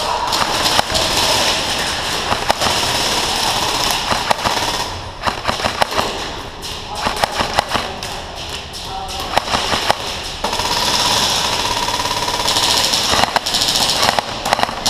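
Electric airsoft rifles firing in rapid bursts, with the clatter of BBs and rattling shots coming in quick trains several times, over background shouting from other players.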